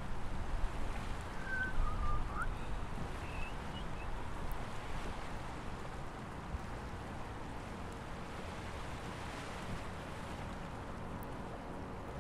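Steady outdoor rumble and hiss, like wind on a microphone, with a few short high chirps in the first few seconds.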